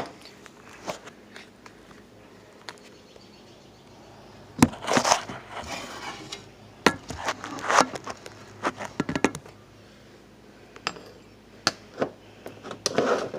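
Scattered knocks, clicks and clatters of kitchen items being handled, with rustling in between; the busiest clattering comes about five seconds in and again around eight seconds.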